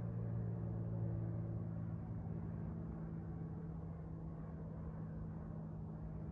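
Steady low engine-like hum made of several held tones, slowly fading a little. No birdsong is heard.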